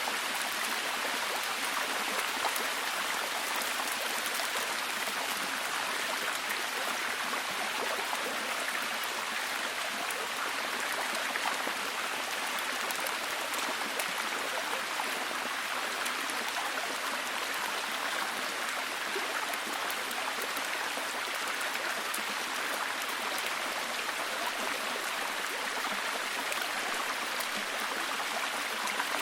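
Steady, heavy rain falling: an even hiss with many fine drop patters.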